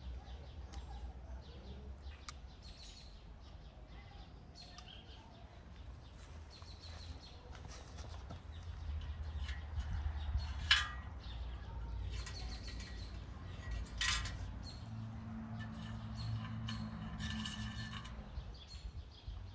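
Small birds chirping in a garden, with two sharp clicks about halfway through and a few seconds later as steel wire and a bicycle wheel are handled, and a low hum for a few seconds near the end.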